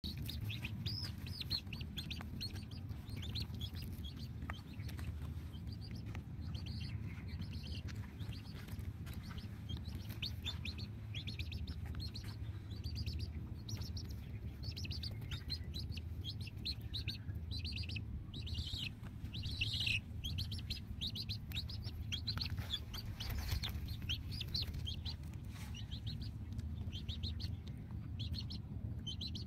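Birds chirping in quick clusters of short high notes, over a steady low rumble.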